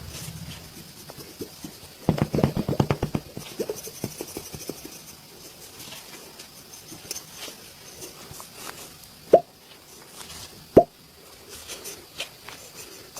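Massage on bare skin: a quick run of rapid hand slaps, then two single sharp pops about a second and a half apart, the loudest sounds.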